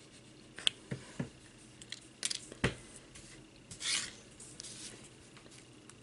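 Small handling noises from a plastic squeeze bottle of Ranger Glossy Accents and its metal nozzle pin being worked by hand: several light clicks and taps, then a short rustling rub about four seconds in.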